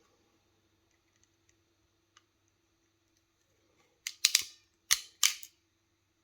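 Hand ratchet crimping tool clicking: four sharp clicks just over a second apart, a little after four seconds in, as the hexagonal crimper for wire-end ferrules is squeezed closed on a 4 mm² ferrule. Before that there are only a few faint ticks.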